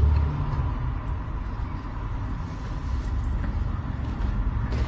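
Steady low rumble with an even hiss and a thin steady tone, outdoor background noise with no distinct event.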